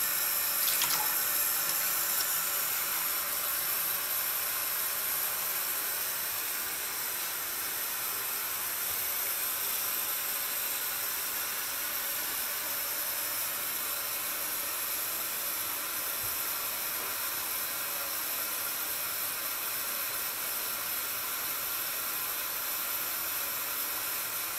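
Bathtub tap running a thin stream of water into the tub near the drain, a steady, even splashing hiss.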